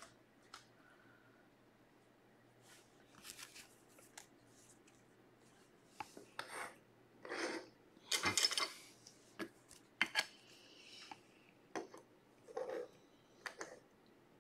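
Trading cards and clear plastic card holders being handled on a table: quiet, scattered scrapes, rubs and light taps, with the loudest rustle about eight seconds in.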